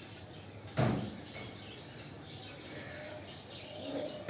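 Pet budgies chirping in many quick, short, high notes, with one thump a little under a second in.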